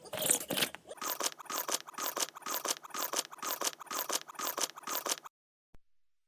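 A white Shiba Inu shaking its whole body hard after a sneeze: a rapid, evenly repeating flapping rattle, about three strokes a second, that stops abruptly about five seconds in.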